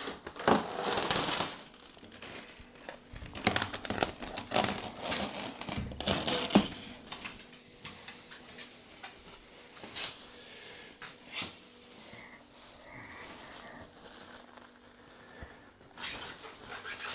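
Cellophane packaging wrap crinkling and rustling in irregular bursts as it is pulled off a boxed appliance, with a few sharp knocks. Quieter stretches come between the bursts.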